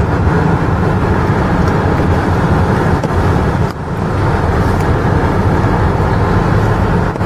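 Steady low rumble of a car's engine and cabin, heard from inside the car as it creeps forward at low speed.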